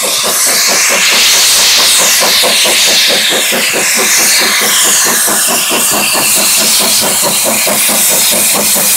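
Steam locomotive approaching while working a passenger train: fast, even exhaust chuffs, several a second, with a loud hiss of steam.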